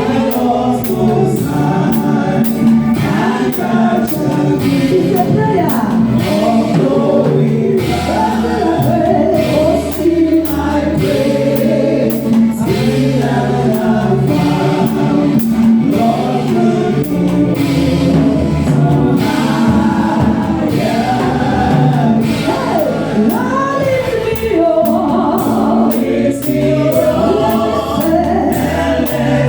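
Gospel choir and congregation singing a worship hymn with band accompaniment and a steady beat.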